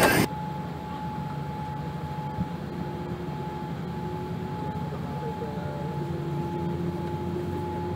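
Steady cabin hum inside a parked Boeing 787-8: a low rumble of the air-conditioning with a thin, steady whine over it. Louder outdoor noise cuts off abruptly just after the start.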